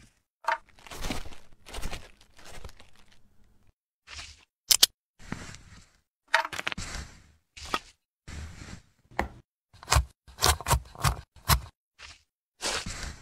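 Stop-motion kitchen sound effects: a string of short clicks, scrapes and tearing sounds with dead silence between them, ending in a quick run of sharp knife chops on a cutting board as olives are sliced.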